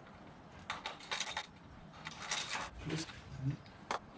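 Hand tools and small metal engine parts being handled, with scattered clicks and clatters and one sharp click near the end.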